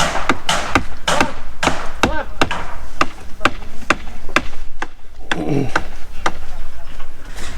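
Hammer blows on wooden concrete formwork. The sharp, evenly spaced strikes come about two a second, with a short break about five seconds in.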